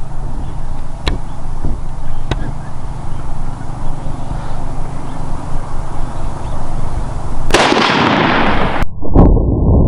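A single .30-06 rifle shot about three-quarters of the way through, its echo rolling on for over a second before it cuts off abruptly. A low wind rumble on the microphone runs underneath.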